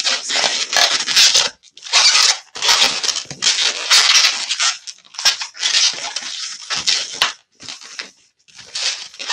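Latex 260 modelling balloons squeaking and rubbing against each other as they are bent into a loop and twisted onto an ear twist, in repeated squeaky bursts with short breaks.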